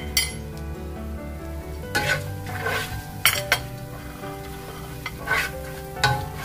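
Plastic spatula stirring and scraping onions and ground spices around a nonstick pot, in several separate strokes, while the mixture fries in oil and ghee.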